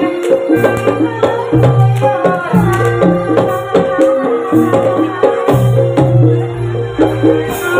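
Kuda lumping (jaranan) accompaniment music played live: hand drums beating sharp strokes over repeated metallic notes and low held tones, with a wavering melody line above.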